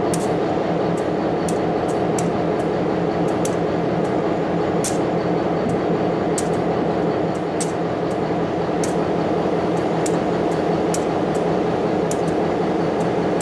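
Diesel-electric locomotive engine idling steadily with an even low drone, with scattered light ticks over it.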